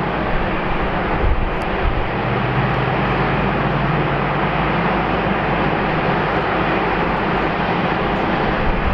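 Airbus A380's four Rolls-Royce Trent 900 turbofan engines running at taxi power as the jet rolls past, a steady jet rumble with a faint low hum.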